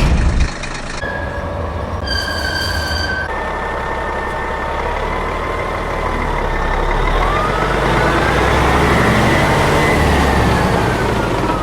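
Heavy-vehicle sound with a steady low engine rumble, a loud thump at the start and a short beep about two seconds in, followed by a slowly wavering whine.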